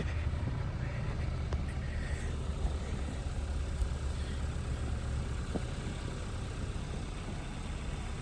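A vehicle engine idling with a steady low rumble, with a few faint clicks.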